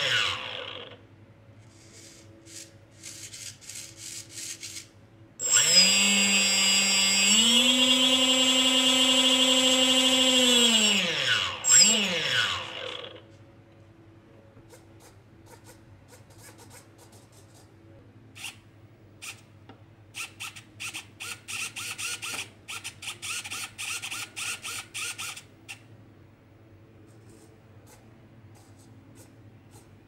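A small brushless (BLDC) motor spins up under joystick throttle about five seconds in, its whine stepping up in pitch. It holds steady for a few seconds, then winds down with a falling whine. Before and after it, hobby servos whirr in short, quick bursts as the joysticks move them.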